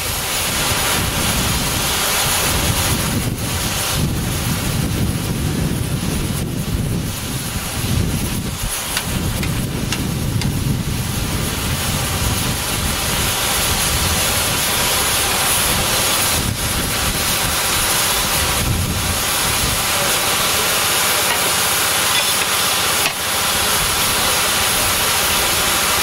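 Fowler BB1 steam ploughing engine hissing steam, with a low rumble through the first half that settles into a steady hiss.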